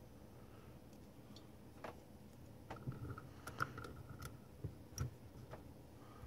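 Faint, scattered small clicks and taps of a small circuit board being handled, its chip pressed into place and the board set into the jaws of a bench vise.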